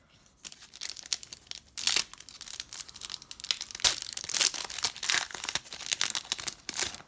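Wrapper of a Panini Donruss basketball trading-card pack crinkling and being torn open: a dense run of sharp crackles, with a few louder tears about two and four seconds in.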